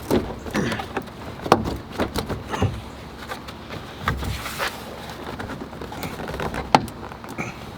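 Plastic trunk trim panel being pulled loose by hand, its push-pin retainers popping and the panel knocking: an irregular string of sharp clicks and knocks, the sharpest about one and a half seconds in and near the end.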